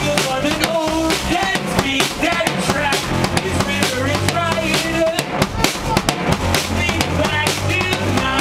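Live band playing loud: a driving drum-kit beat with kick and snare, and a keyboard melody over it.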